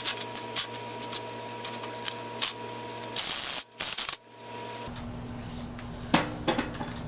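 Light metallic clinks and rattles of a socket and hand tools being handled, with a short louder burst of noise about three seconds in.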